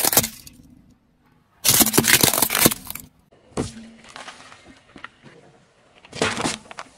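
A car tyre crushing small objects one after another: sharp cracking and crunching in separate bursts, a brief crack of plastic toy bricks right at the start, a longer crunching about two seconds in, and another crunch about six seconds in.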